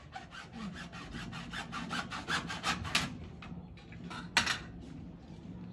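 Fast, even rasping strokes, about seven a second for some three seconds, from hand work on the pipe fitting at a small electric water pump. A few looser strokes follow, then a single sharp knock a little after four seconds.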